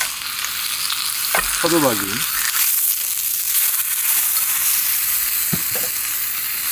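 Thin slices of hanwoo beef sizzling in a hot black steel pan, a steady frying hiss. Near the end there are a couple of light clicks from metal tongs turning the meat.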